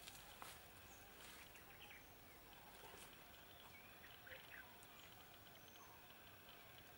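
Near silence: faint open-air ambience with a few scattered clicks and a couple of faint bird chirps.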